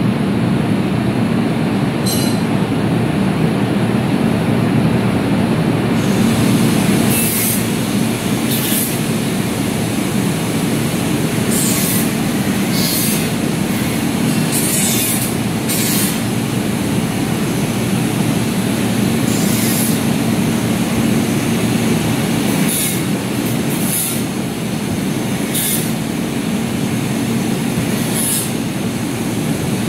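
Air-cooled chiller running and cooling down toward its set point: a loud, steady mechanical hum from the compressor and condenser fans. Short high-pitched hisses come and go every second or two from about seven seconds in.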